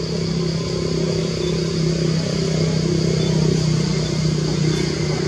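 A steady low motor hum at an unchanging pitch, like an engine running at constant speed, over a continuous higher hiss.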